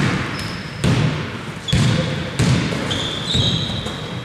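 Basketball dribbled on a hardwood gym floor, five steady bounces a little faster than one a second, with high short squeaks of sneakers on the court in the second half.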